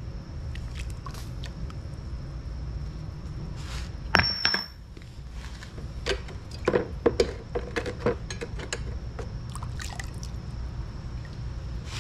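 Freshly cast aluminum ingots handled with steel tongs in a bucket of quench water: water sloshing and splashing, with one sharp metallic clink and a ringing tone about four seconds in. A run of smaller knocks and splashes follows a couple of seconds later, over a steady low hum.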